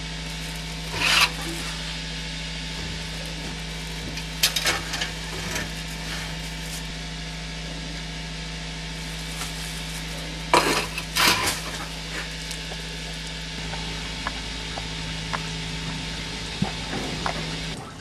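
Liquid nitrogen semen storage tank being opened: four short scraping, knocking strokes of the neck plug and lid being handled, over a steady low hum.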